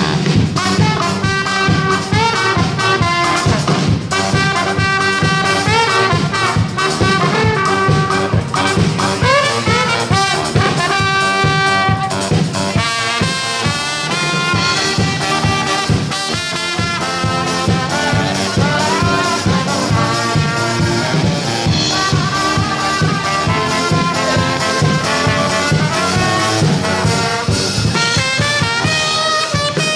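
A brass band playing an upbeat tune over a steady beat, with trumpets and trombones carrying the melody in quick runs of notes.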